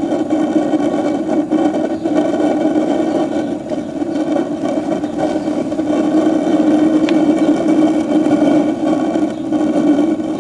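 RV water heater's propane burner running steadily after ignition: a continuous, even rushing sound of a clean-burning flame in the burner tube.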